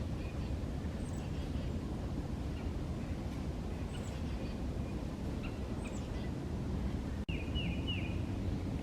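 Wild birds calling in woodland: short high chirps about every second, then a quick run of three or four falling whistles near the end, over a steady low background rumble.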